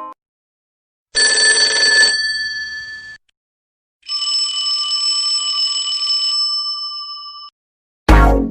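Two separate bell rings: the first rattles for about a second and then rings on briefly, the second rings steadily for about three and a half seconds, like an electric alarm or telephone bell. Loud electronic music starts right at the end.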